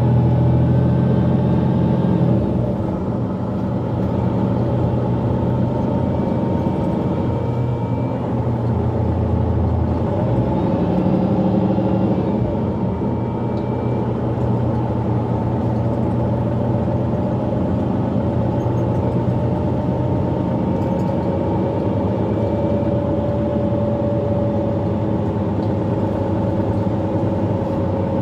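Mercedes-Benz Citaro G articulated bus's diesel engine and Voith automatic gearbox running under way, heard from inside the cabin. The engine note drops off about two seconds in and shifts again, with a short rising whine, around ten seconds in as the bus changes pace.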